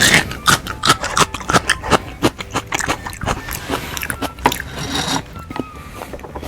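Close-miked chewing of crunchy food: a rapid, irregular run of crisp crackles and bites, thickest over the first three seconds and thinning out after.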